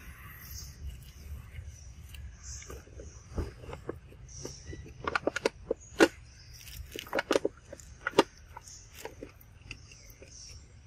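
Dry leaf litter crackling and rustling as macaques move about on the forest floor, with a burst of sharp crackles from about five to eight seconds in. Faint high chirps sound in the background.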